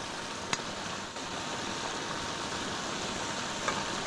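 Pieces of fish deep-frying in a stainless steel pan of oil, a steady sizzling hiss. A metal utensil clicks once against the pan about half a second in, and again faintly near the end.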